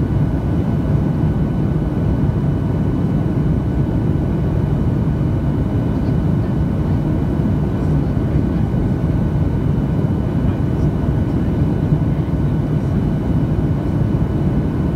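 Steady in-flight cabin noise of a Boeing 737-700: the deep rumble of its CFM56 turbofans and the airflow over the fuselage, heaviest in the low end, with a faint steady high whine above it.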